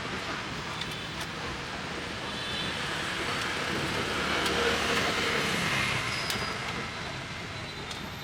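Street traffic, with a vehicle passing: the noise swells about three seconds in and fades again near the end.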